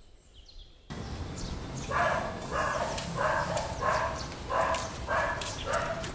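A dog barking over and over at an even pace, about one and a half barks a second, starting about two seconds in. Before that there is about a second of near silence, then faint outdoor background.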